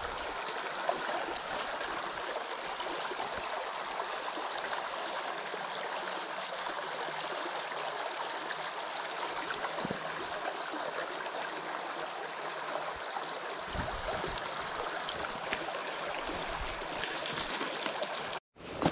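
Shallow stream rippling steadily over a stony riffle. The sound cuts out briefly near the end.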